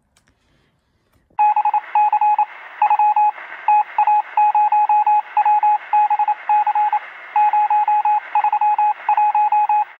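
Electronic beeps keyed on and off in short and long pulses over a steady hiss of static, Morse-code style as if heard over a radio. They start about a second and a half in.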